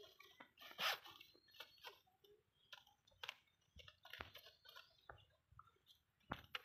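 Near silence broken by scattered faint clicks and rustles, with one brief louder rustle about a second in.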